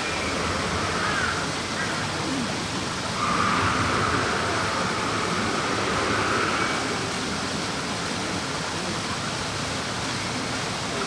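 A steady rushing hiss that swells slightly for a few seconds in the middle.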